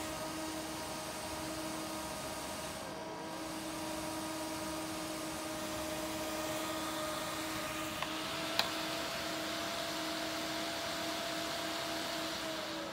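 Small computer cooling fans running with a steady whir and hum: a 12-volt case fan powered from a variable bench power supply as its voltage knob is turned, along with the supply's own cooling fans. The hum's pitch dips briefly about three seconds in and rises slightly after eight seconds, with two light clicks around then.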